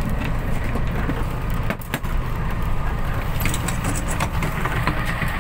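Motor vehicle engine running steadily, a low rumble, with a short dip in level about two seconds in.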